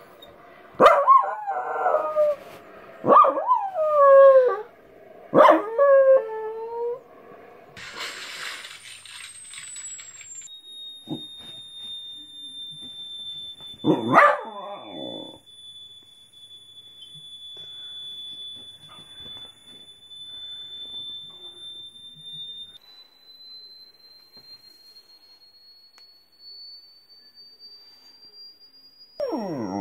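A dog howling three times, each call sliding down in pitch, followed by a single steady high-pitched tone held for about twelve seconds that then creeps slowly upward; the dog gives one more short cry partway through the tone and again near the end.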